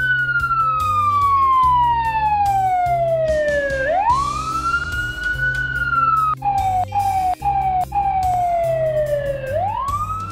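Fire engine siren wailing, each cycle rising quickly and then sliding slowly down over about four seconds. It falls at the start, rises again about four seconds in, and rises once more near the end, with a few brief cut-outs in the middle, over background music.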